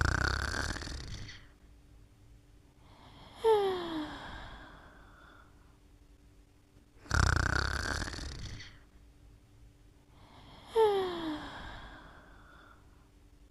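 Snoring in sleep, two slow breath cycles about seven seconds apart: each a loud snore lasting over a second, followed about three and a half seconds later by a softer breath with a short whistle that falls in pitch.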